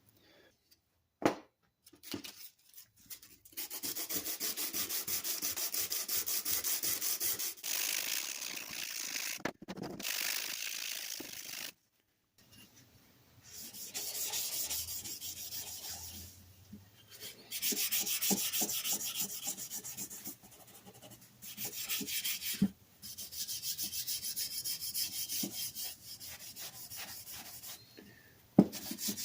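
Hand rubbing and scraping on a surface in several stretches of a few seconds each, separated by short pauses, with a few sharp knocks, the loudest near the end.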